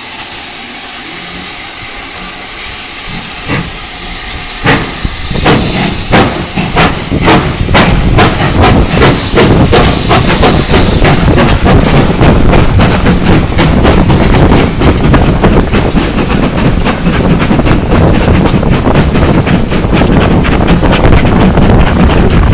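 Two GWR steam locomotives double-heading, Churchward Mogul 5322 and a Collett 3850-class 2-8-0, starting a train, heard from just behind a tender. Steam hisses at first, then sharp exhaust beats begin about four seconds in and quicken steadily as the train gathers speed, growing louder into a fast continuous chuffing.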